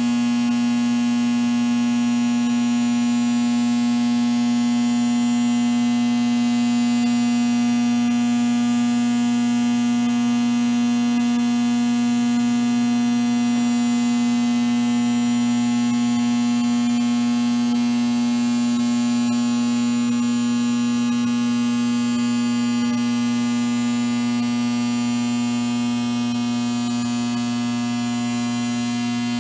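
Steady electrical buzz: a low mains-type hum with a dense stack of buzzing overtones, unchanging throughout and easing off slightly near the end.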